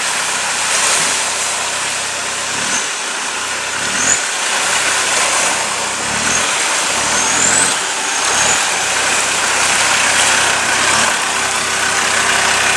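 Land Rover Discovery engine running and rising and falling as the lifted 4x4 crawls through a shallow rocky river, over a steady rush and splash of water around its large mud-terrain tyres.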